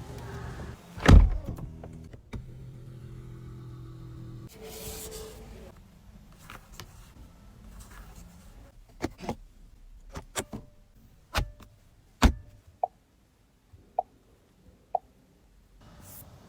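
Car body and fittings: a heavy thump, then a few seconds of steady electric motor hum like a power window running, then a string of separate sharp clicks and taps, some with a short ring.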